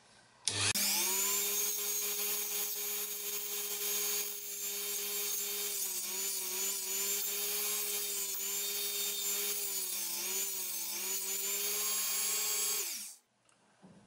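High-speed rotary tool with a grinding stone bit running steadily, starting about half a second in, while the tip of a hairclip lock pick is ground against the stone. Its pitch sags a little twice under the load. It is switched off near the end and winds down.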